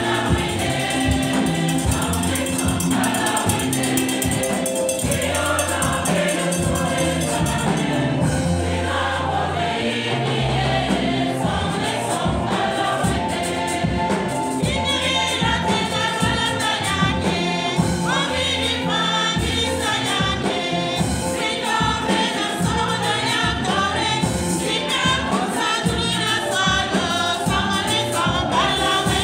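Church choir and congregation singing a hymn together over low, sustained instrumental notes, with sharp percussive strikes in the first several seconds.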